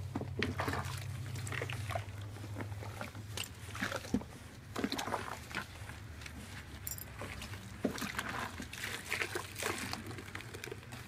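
Water sloshing and splashing in a plastic tub as a wet dog is rubbed down by hand, in short irregular bursts over a low steady hum.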